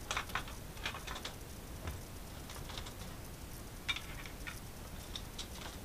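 Light clicks and rattles of a Seagate Central's plastic casing being handled as its cover is lifted off the drive tray and set down, coming in small clusters, the sharpest about four seconds in.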